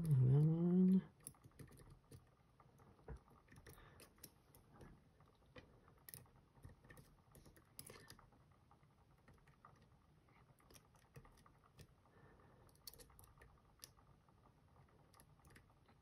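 Faint, scattered clicks and scratches of a fine lock pick working the seven pins of a Van Lock padlock, a tubular-style lock held under tension with C-clip pliers.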